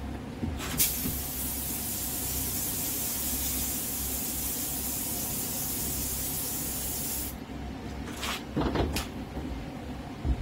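Gravity-feed air spray gun hissing as it sprays paint: one steady spray lasting about six seconds, then two short bursts.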